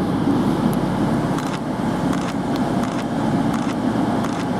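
Virgin Class 221 Super Voyager's underfloor Cummins diesel engines idling as the train stands at the platform: a steady low hum.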